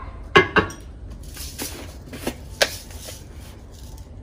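A metal spoon clinking against glass seasoning jars and a metal pan while seasoning is scooped out. Two sharp clinks come close together about half a second in, then a few lighter taps and one more sharp clink over the next two seconds.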